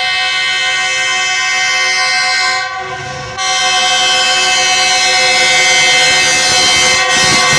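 Pakistan Railways GEU-20 diesel locomotive sounding its horn nonstop as it approaches. The horn dips briefly about three seconds in, then comes back louder and keeps growing as the train draws nearer.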